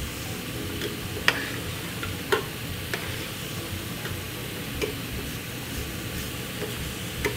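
Bacon, cervelat and pork ribs sizzling steadily in a frying pan, with a few sharp clinks of a spoon stirring in a steel stock pot, over a steady low hum.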